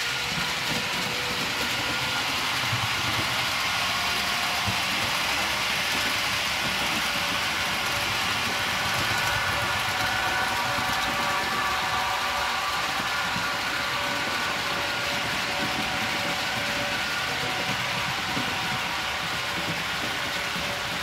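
H0-scale model trains running: a steady whirr of their small electric motors with a faint whine, and the rolling of metal wheels on the track.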